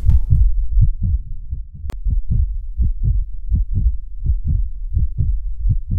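Heartbeat sound effect: deep low thuds coming in pairs, lub-dub, a pair about every three-quarters of a second, with one short click about two seconds in.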